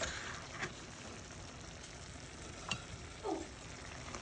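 Shrimp and broccoli stir-fry in sauce sizzling in the pan, with a serving spoon scraping against the pan a few times as the food is scooped up.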